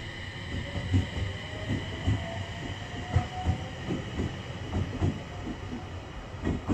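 Electric train running through a station, its wheels knocking over rail joints in a rhythmic clickety-clack, about two to three knocks a second over a steady rumble.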